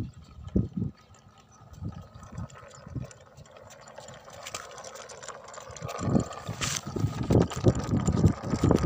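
Wind buffeting the microphone in irregular low gusts, heavier from about six seconds in, with a few light clicks.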